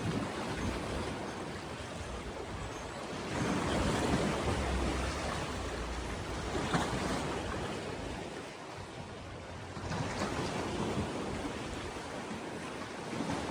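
Lake water washing against the shore, swelling louder twice, with wind on the microphone.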